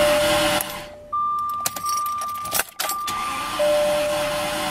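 Jaguar trying to crank on a weak battery, which the owner takes for a dead battery. A steady buzzing noise drops out about a second in and comes back, with a few clicks in the middle, over a steady electronic tone that switches between a lower and a higher pitch.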